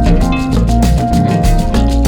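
Background music with a steady, percussive Latin beat.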